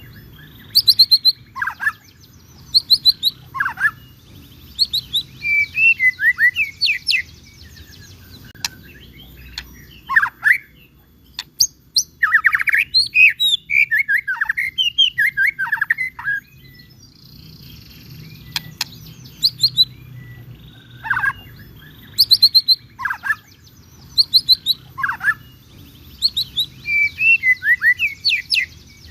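White-rumped shama (murai batu) singing loudly: a long series of varied whistled phrases and rapid trills, separated by short pauses, over a low steady background hum.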